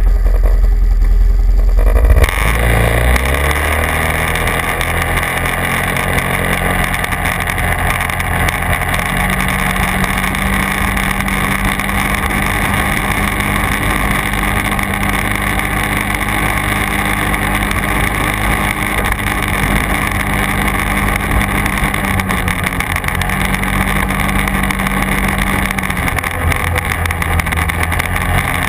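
Quad bike engine running under way, its pitch rising about two seconds in as it picks up speed, then holding fairly steady with a brief dip about two-thirds through. A steady rush of wind and track noise runs underneath.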